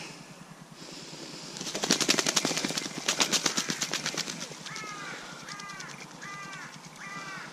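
A mallard, pinned by a hawk, beating its wing hard against dry leaves in a rapid flurry of strokes for a few seconds, then giving a series of five short calls, about one every 0.7 s.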